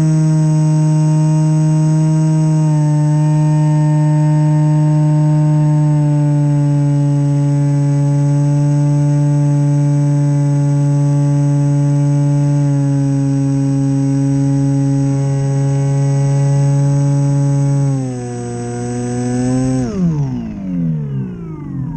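Small brushless electric motor (RS2205 2300kv) spinning the propeller of an FPV foam plane, heard from the onboard camera: a steady, loud drone with a thin high whine over it, stepping slightly lower in pitch a few times as the throttle eases. Near the end the throttle drops, then is cut, and the pitch slides steeply down as the propeller winds down.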